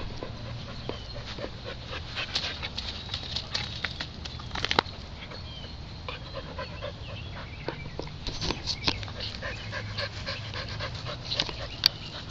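Dog panting as it plays, with many scattered clicks and two sharp knocks, one about five seconds in and one near the end.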